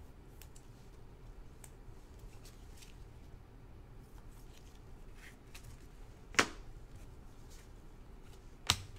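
Gloved hands sliding a trading card into a clear plastic top loader: faint handling rustle with light ticks, one sharp click about six and a half seconds in and another just before the end, over a low steady hum.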